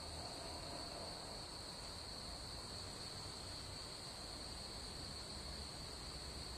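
Faint, steady high-pitched tone with a low hum and hiss beneath.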